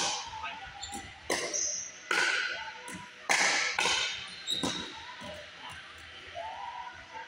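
Pickleball paddles striking the plastic ball in a rally: four loud, sharp pops in about three and a half seconds, each echoing around a large gym hall, then a few lighter taps about a second later.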